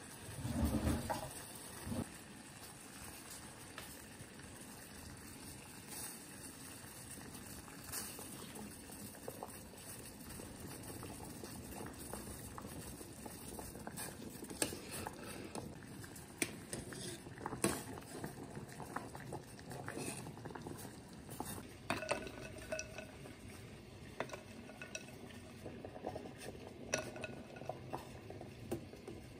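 Water boiling steadily in a stainless-steel saucepan of dumplings, with scattered clinks of a ladle against the pot and dishes and a low thud about a second in. In the second half come a few short ringing clinks against glass.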